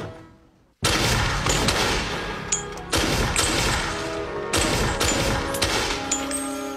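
Music fades out, and about a second in a handgun opens up on an indoor shooting range, firing rapidly shot after shot. Music comes back in underneath the gunfire.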